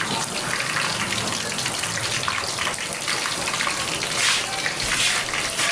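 Water running steadily from a tap into a sink, with scattered splashes.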